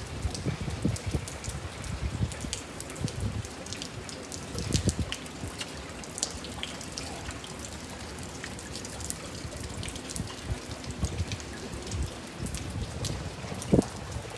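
Rainwater trickling and dripping down a metal ring rain chain (kusari-doi) from the eaves, with many sharp drips over a steady patter of rain.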